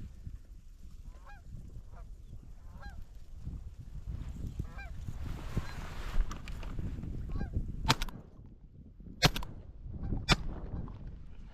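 Geese honking in a string of short calls. Three sharp knocks or cracks come in the last few seconds and are the loudest sounds.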